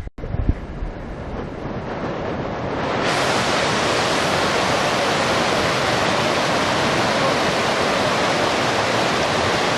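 Mountain stream rushing steadily over rocks, a full, even water noise. It builds over the first few seconds, after a couple of low wind buffets on the microphone at the very start, then holds level.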